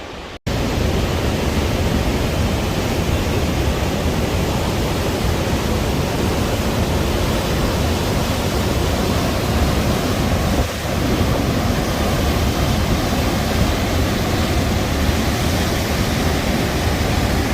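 Large waterfall heard up close: a loud, steady rush with a deep rumble underneath. It starts abruptly just after the beginning and dips briefly about eleven seconds in.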